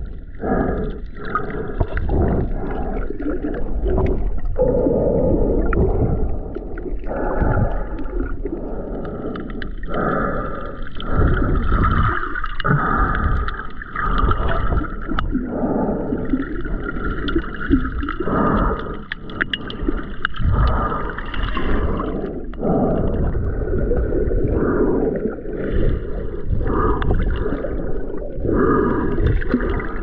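Water sloshing and gurgling around a snorkeler's camera, heard muffled as if underwater, rising and falling in uneven surges.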